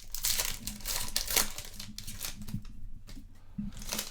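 Foil trading card pack wrapper being crinkled and torn open, with irregular crackling rustles.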